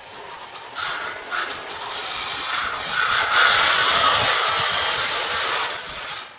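Harsh rasping of a cutting tool working material, with short uneven strokes at first, then loudest and steadiest from about three seconds in until shortly before the end.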